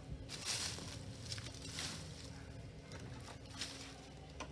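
Faint rustling and scuffing, with a few soft ticks over a low steady hum.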